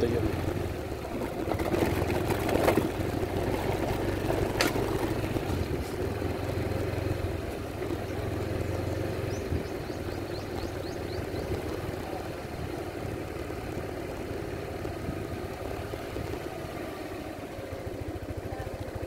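Yamaha NMax 155 scooter's single-cylinder engine running steadily at low riding speed, with road noise. Two sharp knocks come a few seconds in, and the sound eases off a little as the scooter slows.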